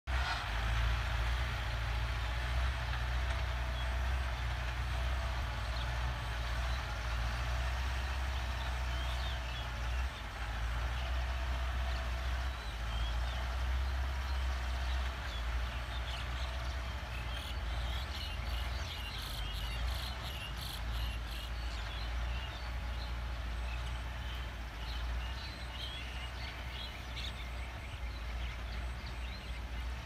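Farm tractor's engine running steadily at a distance as it ploughs, a constant low hum, with birds chirping over it from about a third of the way in, most busily around the middle.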